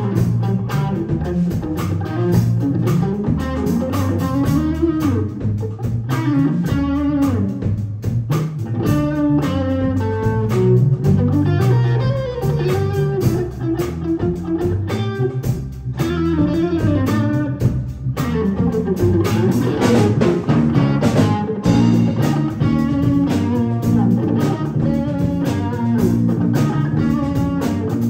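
Live jazz-funk trio of electric guitar, electric bass and drum kit playing, the guitar carrying a winding melodic line over a steady bass groove and cymbal hits.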